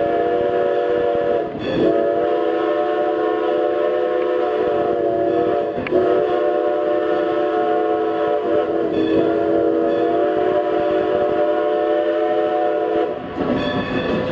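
Multi-note chime steam whistle of Strasburg Rail Road steam locomotive No. 90 sounding a steady chord in a series of long blasts: one already going, then three more after short breaks, the last cutting off about a second before the end. Under it runs the rumble of the moving passenger train.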